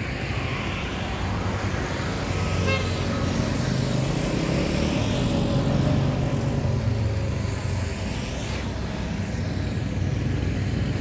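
Steady rumble of road traffic, swelling towards the middle, with a short horn toot about three seconds in.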